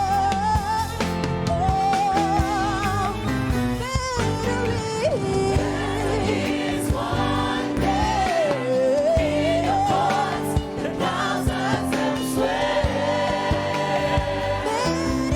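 Live gospel worship music: a lead singer with vibrato and backing choir over a band with drums and keyboard chords.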